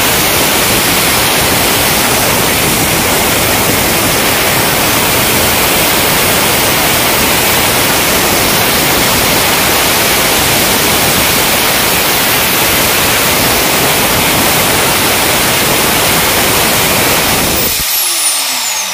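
Bosch GWS 7-100 angle grinder running at full speed with no load, a loud steady whir. Its motor sounds strong again after the armature and carbon brushes were serviced. It is switched off near the end and spins down with a falling whine.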